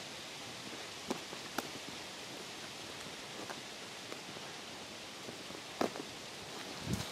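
A few scattered footsteps on cracked pavement over a steady outdoor hiss.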